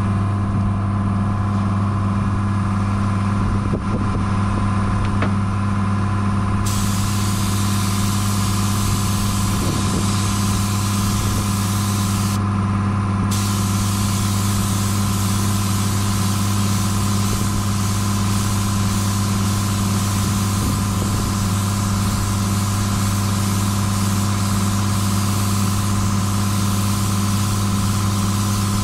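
A paint spray gun hissing as base coat is sprayed onto a car bumper, starting about seven seconds in, with a pause of about a second around twelve seconds in, over the steady low hum of a motor running throughout.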